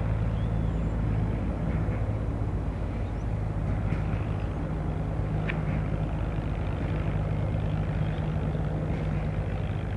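Distant Sikorsky S-92A twin-turbine helicopter in flight, heard as a steady low drone from its rotors and engines.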